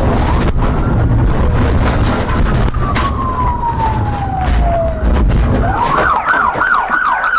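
Police siren sounding over a vehicle's rumble: a long falling wail, then a fast warbling yelp near the end.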